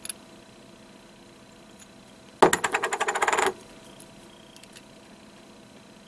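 Small metal spark-plug gapping tools and a spark plug clinking together in the hands: a quick metallic rattle lasting about a second, a little over two seconds in, then a few faint ticks.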